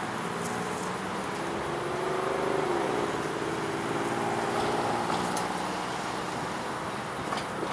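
Engine running steadily, its pitch gliding down about three seconds in.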